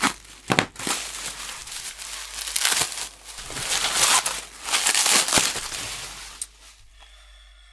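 A shipping package being torn open and unwrapped by hand: irregular crinkling, rustling and ripping of the packing material, fading out near the end.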